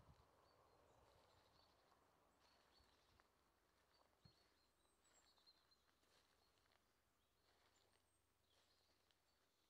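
Near silence: faint outdoor ambience, with faint high chirps and a few soft clicks.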